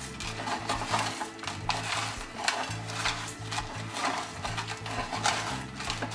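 Crispy fried onions crackling and crunching irregularly as they are crushed by hand in a plastic container, over background music with a steady bass line.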